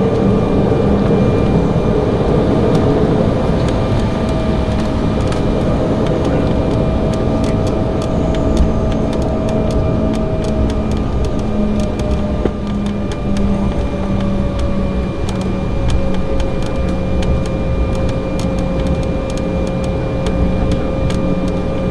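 Cabin noise of an Embraer E190 taxiing, its GE CF34-10E turbofan engines running at low power: a steady rumble with a few engine tones that drift slowly in pitch.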